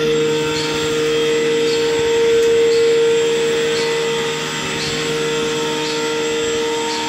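An electric motor-driven machine starts abruptly and runs steadily with a constant whine over a rushing noise, with a faint tick about once a second.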